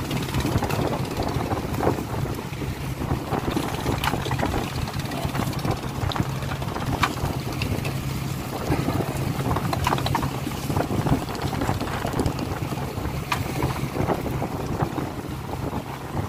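Purse-seine fishing boat's engine running with a steady low hum, under wind on the microphone and irregular splashing and knocks.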